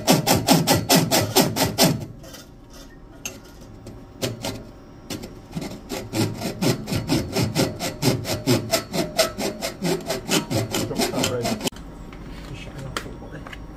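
Hand deburring tool twisted back and forth on the end of a copper pipe: a fast rhythmic rasping scrape, several strokes a second. It pauses about two seconds in, starts again, and stops suddenly near the end.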